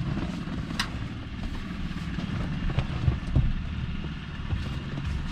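A few light clicks and taps of plastic dash trim being handled, over a steady low hum.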